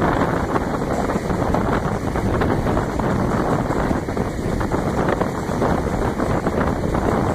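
Steady wind buffeting the microphone of a camera riding on a moving freight train, mixed with the train's running noise.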